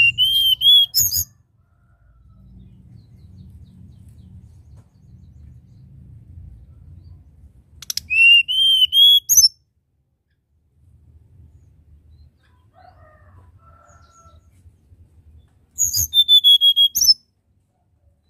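Caged hill blue flycatcher (tledekan gunung) singing three short phrases several seconds apart, at the start, in the middle and near the end. Each phrase is a quick run of high, slurred whistled notes.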